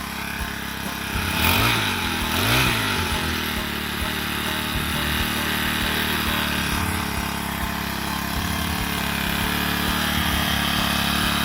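Small lawn mower engine running after repair, revved up and back down twice in the first few seconds, then running steadily.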